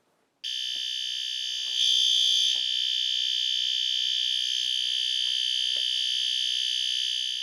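System Sensor P2RL fire alarm horn sounding a steady, unbroken continuous tone. It starts about half a second in and is briefly louder around two seconds in.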